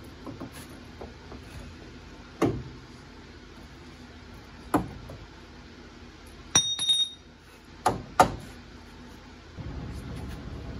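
Scattered metal knocks and clanks from tools or steel parts being handled and set down, about six in all, including a short ringing clink near the middle.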